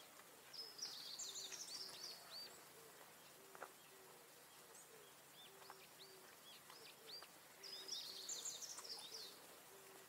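Faint outdoor birdsong: two bursts of quick high twittering, one about half a second in and one near the end, with scattered single chirps between. A low short note repeats about twice a second underneath.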